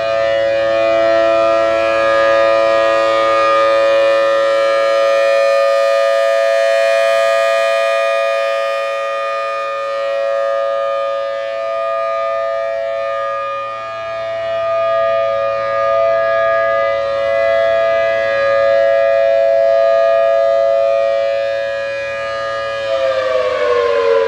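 Federal Signal Thunderbolt 1000T civil defense siren sounding a steady alert tone, its loudness slowly swelling and fading. Near the end its pitch starts to fall as it begins to wind down.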